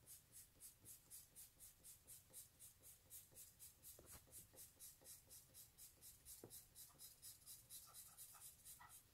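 Gray felt-tip marker scribbling back and forth on paper, colouring in, in an even rhythm of about four or five faint strokes a second.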